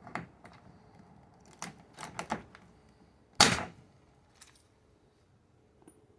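Hand pop-rivet gun being squeezed on a rivet in a metal corner plate: a few clicks of the handle strokes, then one loud sharp snap about three and a half seconds in as the rivet sets and its mandrel breaks off.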